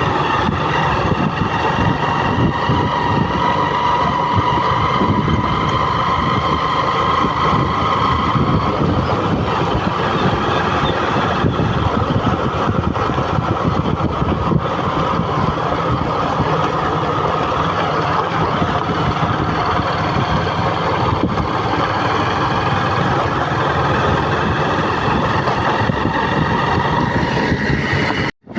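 A motor vehicle driving, its engine and road noise steady. A faint whine fades out about eight seconds in, and the sound drops out briefly near the end.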